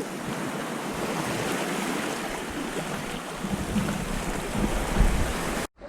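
Sea surf washing against shore rocks as a steady hiss, with wind buffeting the microphone in low rumbling gusts that grow stronger about four to five seconds in. It cuts off suddenly near the end.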